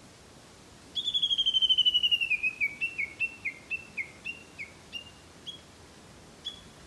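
Japanese bush warbler (uguisu) giving its rapid valley-crossing call: a fast run of ringing notes that gradually slows into separate, fading notes, with one last note near the end.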